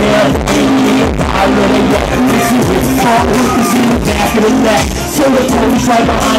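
Hip-hop backing track playing loud through the club's PA in a live recording, with a beat and a repeating melodic line.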